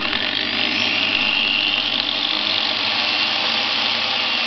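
Electric angle grinder running steadily with a high whine, just switched on and powered through a homemade speed-regulator socket.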